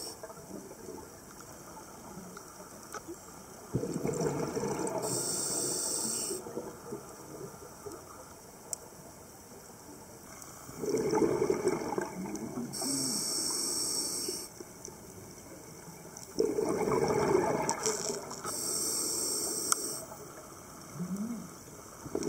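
A scuba diver breathing through a regulator underwater: three slow breaths about six seconds apart, each a rush of exhaled bubbles and a high hiss of air through the regulator, with faint water noise between.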